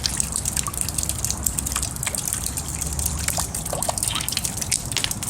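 Rain dripping and trickling steadily, with many small scattered drip sounds.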